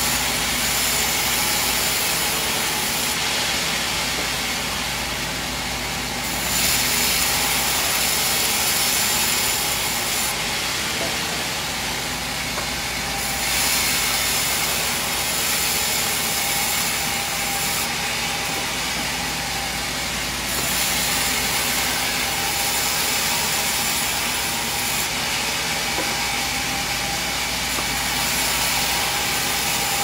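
Sawmill band saw running and cutting lengthwise through a timber beam: a steady hiss of sawing over the machine's hum. The high part of the hiss shifts every few seconds as the cut goes on.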